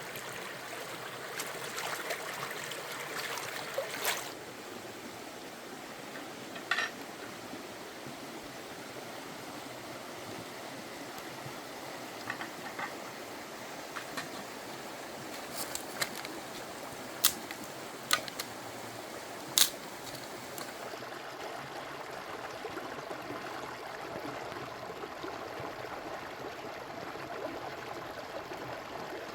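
Stream water flowing steadily, with a handful of sharp clicks and knocks over it, scattered through the first two-thirds.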